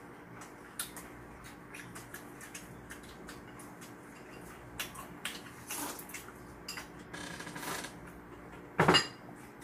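Eating at the table: chopsticks clicking against bowls, with noodle slurping in two longer stretches and a short loud burst near the end.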